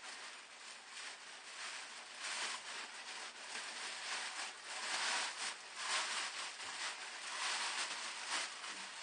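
Clear plastic wrapping crinkling and rustling as it is pulled apart by hand, in irregular crackles that get louder past the middle.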